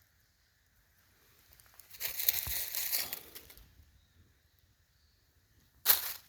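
A rustling, crunching noise lasting about a second and a half, a couple of seconds in, then a short sharp rustle near the end.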